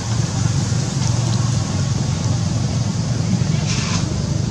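Steady low rumble with hiss, with a short burst of higher hiss near the end.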